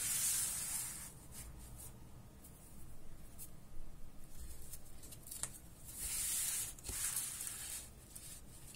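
Thick cardboard pages of a folding accordion book sliding and rubbing against the surface beneath as a hand pulls the book along. A short scraping hiss at the start and a longer one about six seconds in, with a few light taps and clicks between.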